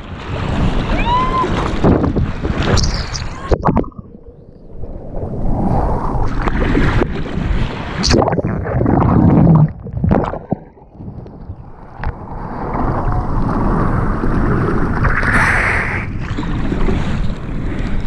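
Water rushing and splashing around a surfboard as it catches and rides a breaking river wave, with wind noise on the microphone. The rush cuts out briefly a couple of times.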